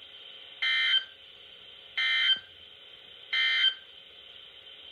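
NOAA Weather Radio SAME end-of-message signal, heard through a weather radio's speaker: three short, identical buzzy data bursts about a second and a half apart, marking the end of the tornado warning broadcast.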